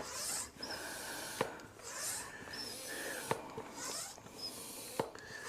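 Bicycle tire being inflated with a pump in slow strokes: a short hiss of air and a sharp click about every two seconds, as the tire's edge is seated on the wheel.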